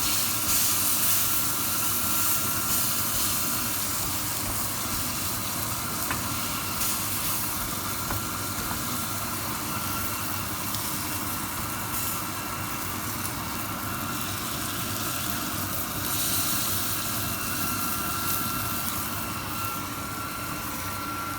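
Chicken steak sizzling in a frying pan, a steady hiss, over a steady mechanical hum with a faint thin steady tone.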